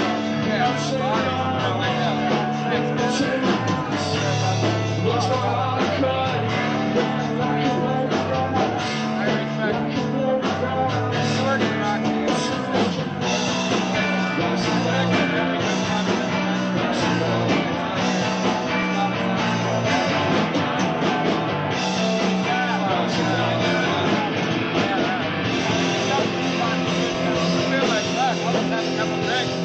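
Post-hardcore rock band playing live, with guitar and drums, heard from a two-channel cassette recording of the show.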